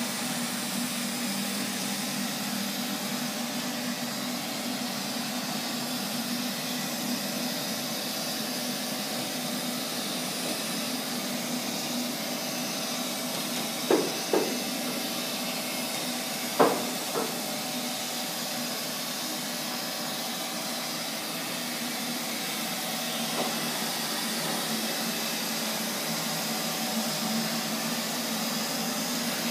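Neato XV-25 robot vacuum running steadily, its suction motor and brush making an even hiss over a low hum. About halfway through come a few short sharp knocks, two close together and then two more, as the robot bumps against the wall and obstacles.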